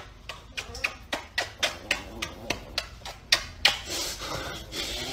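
A man kissing a small dog over and over: a quick run of about a dozen lip smacks, then a softer breathy stretch after about three and a half seconds.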